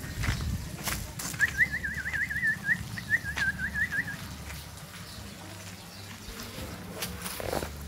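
A bird's warbling call: one high whistled note wavering rapidly up and down for about three seconds, with a brief break partway through. A few sharp knocks and a low rumble sit underneath.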